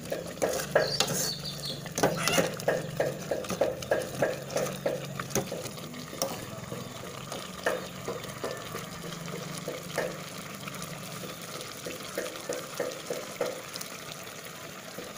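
Metal spoon stirring a thick taro-leaf curry in an aluminium pot, scraping and tapping against the pot about three times a second for the first half, then slower and more scattered, over a low steady hum.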